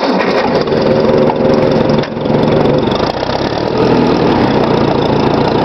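1954 Ford NAA tractor's four-cylinder engine running on a cold start with the choke partly on, loud and steady apart from brief dips about two and three seconds in.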